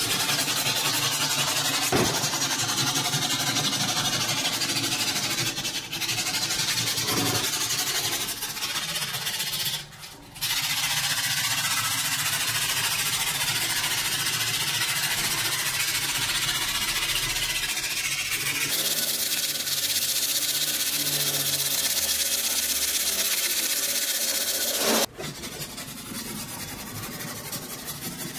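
Abrasive paper on a hand sanding block rubbed rapidly back and forth over the steel blade of an old cleaver clamped in a vise: a steady scratching, with a brief pause about ten seconds in and quieter strokes over the last few seconds.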